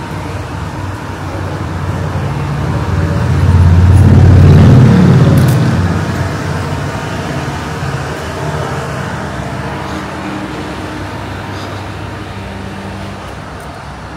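Street traffic with a motor vehicle passing close by: its engine and tyre noise swell to a peak about four to five seconds in, then fade back into the steady rumble of traffic.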